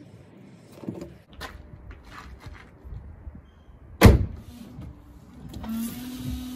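Light plastic clicks as a washer jet nozzle is worked into its housing, then a single loud thump about four seconds in as the Audi Q3's bonnet is shut. Near the end the windscreen washer pump starts with a steady whirring hum and a hiss of fluid spraying from the jets.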